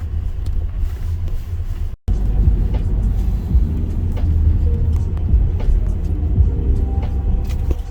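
Car driving, heard from inside the cabin: a steady low rumble of road and engine noise. It cuts out for an instant about two seconds in, then carries on.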